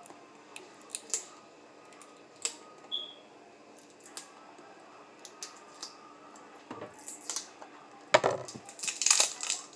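Scattered small clicks and taps of a garlic jar being handled as its stuck lid is worked at, then a louder burst of scraping and rattling near the end.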